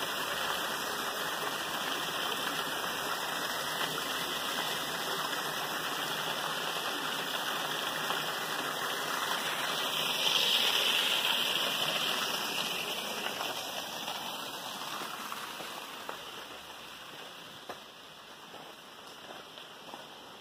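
Water rushing over rocks in a small cascade: a steady rush that grows louder about ten seconds in, then fades over the last few seconds.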